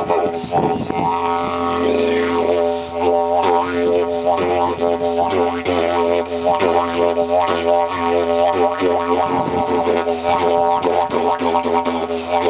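Didgeridoo made of white PVC pipe, played as a continuous drone with a regular pulsing, wah-like shifting in its tone.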